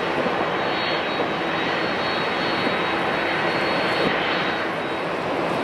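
An airliner's turbine running while it stands parked: a steady rushing roar with a thin, constant high whine.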